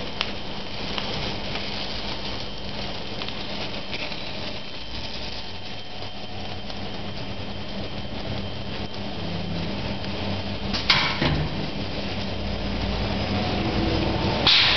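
Automatic bagging machine for aluminium profiles running: belt conveyors and drive motors make a steady mechanical hum with faint steady tones. A short sharp hissing burst about eleven seconds in.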